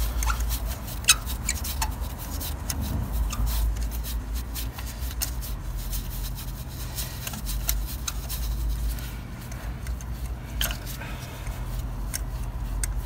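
A 14 mm spark plug socket on an extension bar turned by hand to unscrew a loosened spark plug: faint scraping and rubbing with scattered light metal clicks. A low steady hum runs underneath.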